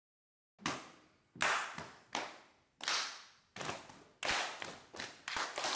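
A rhythm clapped out by hand, about ten sharp claps in an uneven pattern, each ringing briefly in a reverberant room; it starts after a moment of silence.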